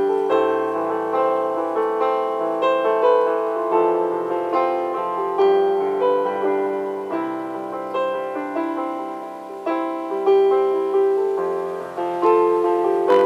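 Electronic keyboard played with both hands: chords over a bass line, each struck note fading before the next, restruck every half second to a second.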